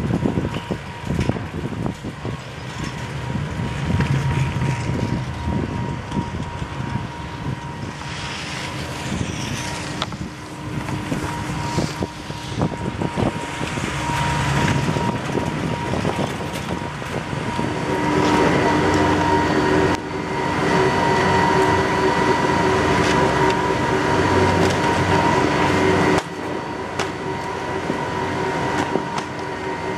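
Detachable three-seat chairlift in motion: the haul rope and chair clattering over tower sheaves, then the terminal machinery with a steady mechanical whine that starts about eighteen seconds in and drops off abruptly around twenty-six seconds, as the chair passes through the top station's conveyor wheels and bullwheel.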